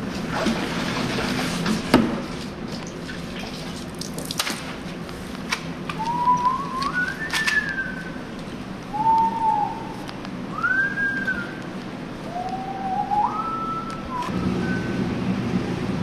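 A person whistling a short tune of gliding notes in several phrases, over a low steady hum. A sharp knock comes about two seconds in, with a few fainter clicks after it.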